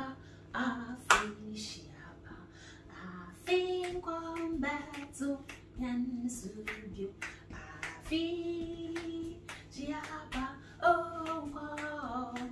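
A woman singing unaccompanied, holding some notes for about a second, punctuated by sharp hand claps, the loudest about a second in.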